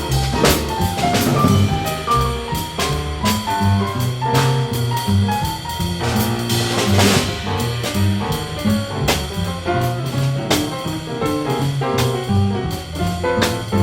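Small jazz combo playing live with no singing, the drum kit prominent over a moving bass line and pitched melody notes.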